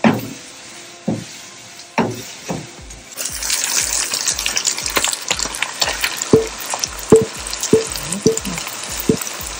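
Wooden spatula stirring sliced onions in hot oil in a nonstick frying pan, a few separate strokes. About three seconds in, marinated prawns go into the pan and a loud, dense crackling sizzle starts, with the spatula knocking against the pan.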